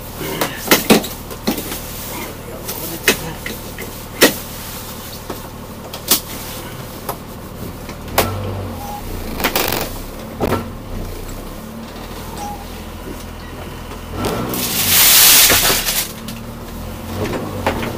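Subaru Libero 4x4 van heard from inside the cab, crawling in four-wheel drive over a rough, wet dirt track: a steady low engine drone with sharp knocks and rattles as the body jolts over bumps. A loud rushing noise swells up about fifteen seconds in and lasts a second or two.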